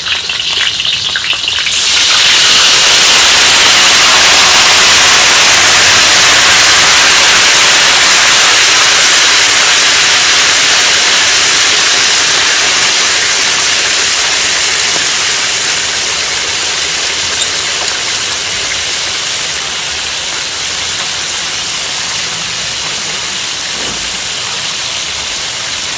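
Hot oil in a wok sizzling loudly as soy sauce and rice wine are poured in around a browned whole chicken. A sudden hiss starts about two seconds in and slowly dies down.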